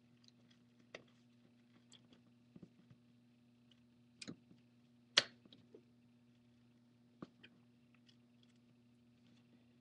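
Scattered small clicks and crackles as a plastic opening tool is worked under the adhesive-bonded front glass of an iPad 3, the sound of the adhesive coming loose rather than the glass cracking; the loudest snap comes about five seconds in. A faint steady hum lies underneath.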